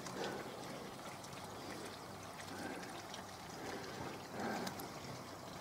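Faint, steady rushing background noise with no distinct events.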